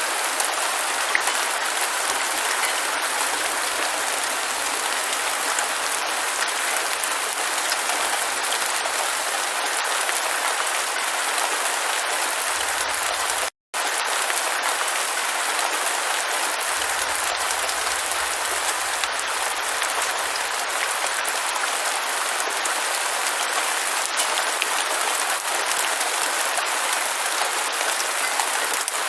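Steady rain falling: an even hiss with fine patter. About halfway through, the sound cuts out completely for a split second, then resumes.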